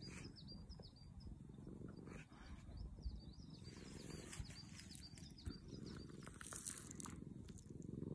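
Faint low purring of a domestic cat being stroked, with a small bird's thin, high chirps repeating about twice a second.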